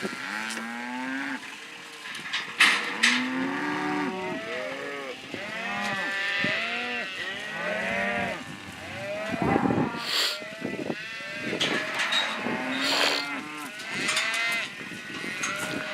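A herd of cattle mooing and bawling, many calls overlapping without a break, some deep and some higher-pitched like calves, with a few sharp knocks among them.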